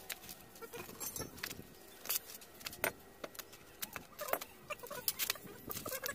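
Irregular metallic clicks and clinks of tools and parts at a hand tractor's wheel hub as the wheel is worked off.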